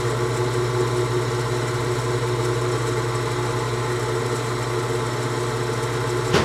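Spindle motor of the machine holding the end mill, running steadily with an even hum, while light cuts are taken on a small steel part. One sharp click comes near the end.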